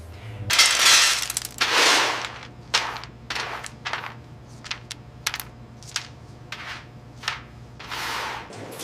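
Dry roasted cocoa nibs and cracked shell pieces being pushed and sorted by hand across a stainless steel tray: long scraping sweeps about half a second and two seconds in and again near the end, with many small clicks and rattles of the pieces between.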